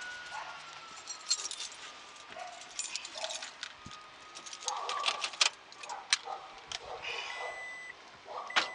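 Irregular clicks, clinks and rattles of small hard objects being handled, with a brief thin squeak-like tone in the first second.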